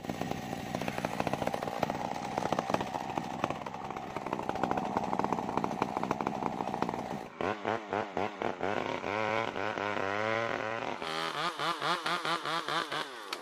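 Homemade Stihl 070-type two-stroke chainsaw running steadily, then revved in a series of rising and falling bursts from about seven seconds in, and held at high speed from about eleven seconds as it cuts into the sengon trunk.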